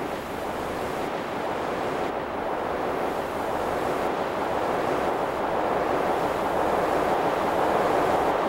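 Ocean surf: a steady wash of breaking waves that grows slowly louder.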